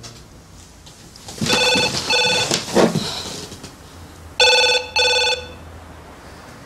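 Cordless home phone ringing with an electronic trill in the British double-ring pattern: two double rings, about a second and a half in and again about four and a half seconds in. Some rustling comes between the two rings.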